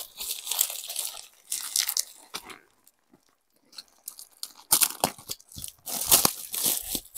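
Plastic packaging crinkling as it is handled and cut open with scissors, in irregular bursts with a short pause midway and denser crackling in the last few seconds.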